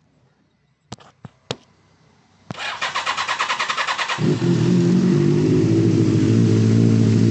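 Benelli 600i motorcycle's inline-four engine being started: a few sharp clicks, then the electric starter cranks with a rapid pulsing for under two seconds before the engine catches about four seconds in and settles into a steady idle.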